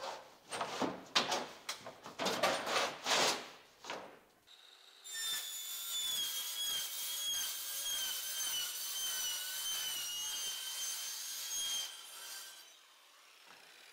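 Workshop tool work: for about four seconds, irregular rasping strokes like sawing. A power tool then runs with a steady high whine that wavers slightly in pitch for about seven seconds and fades out near the end.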